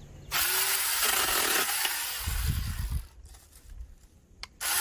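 Cordless 21-volt mini chainsaw running and cutting through a tree branch, starting suddenly, stopping after about three seconds, then starting again near the end.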